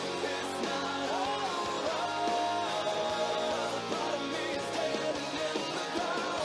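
Background music: a pop-rock song with guitar and singing.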